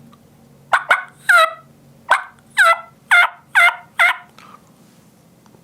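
Hen turkey calls on a turkey mouth call, played as a hiccup: two sharp cuts, a yelp, another cut, then a run of four yelps about half a second apart.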